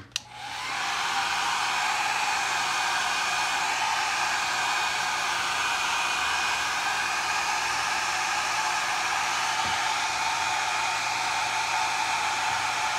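Conair Cord-Keeper 1875 handheld hair dryer switched on with a click. It rises to full speed within about a second, then blows steadily, drying alcohol-based wood stain on a basswood board.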